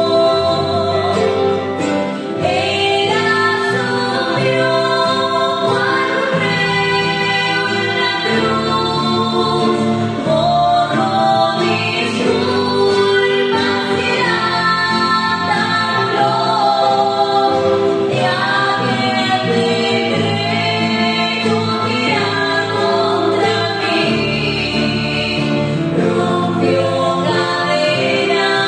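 Two women singing a song together to a classical acoustic guitar played by one of them.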